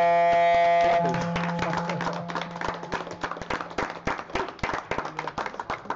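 A timer horn sounds one loud, steady buzzing tone for about a second and then fades, signalling the end of a table hockey match. Applause and clapping from a small crowd take over and continue.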